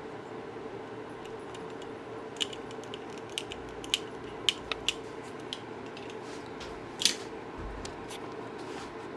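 Scattered light clicks and taps of small objects being handled, over a steady room hum; the loudest click comes about seven seconds in.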